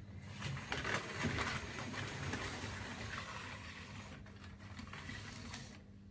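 Lego train locomotives' plastic wheels rolling along plastic Lego track: a steady clattering rolling noise made of many small clicks, fading near the end.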